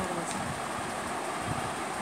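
Steady background hum, like a running fan, with a soft low knock about one and a half seconds in.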